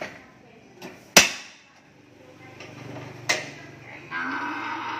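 A cow mooing: a low moo from about two and a half seconds in, then a loud, drawn-out bellow starting about four seconds in. Earlier come sharp knocks, the loudest about a second in.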